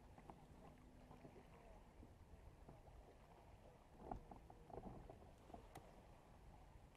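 Near silence: faint water and wind noise around a bass boat, with a few soft splashes and clicks about four to five seconds in as a hooked bass is brought alongside the boat.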